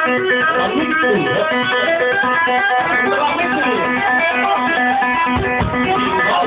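Music: a band's song with guitar playing quick runs of plucked notes.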